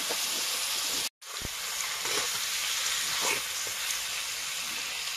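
Pork and taro pieces sizzling as they fry in an aluminium wok, with a metal spoon scraping through them a few times. The sound cuts out completely for a moment about a second in.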